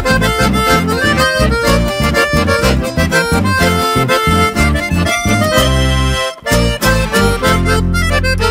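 Instrumental folk music led by a piano accordion playing melody and chords over a steady rhythmic accompaniment of acoustic guitars. The music drops out briefly a little past halfway, then the accordion holds a long chord near the end.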